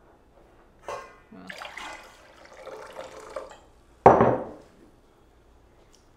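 Ume plum vinegar and water brine poured from a glass jar into a stainless steel bowl of sliced vegetables. A short clink comes about a second in, followed by about two seconds of splashing liquid. About four seconds in there is a loud clunk as the jar is set down.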